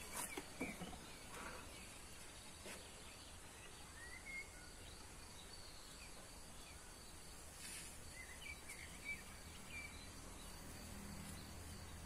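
Quiet outdoor ambience: small birds chirping now and then, with a quick run of chirps near the end, a faint steady insect whine, and a few light knocks from bowls and food being handled.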